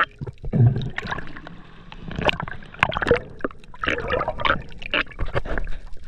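Water sloshing and gurgling around a camera held in the sea while swimming, with many irregular clicks and knocks.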